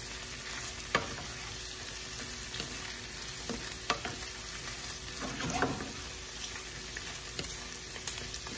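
Shell-on shrimp sizzling in garlic butter in a skillet while a wooden spatula stirs and tosses them, knocking and scraping against the pan a few times, the sharpest knock about a second in.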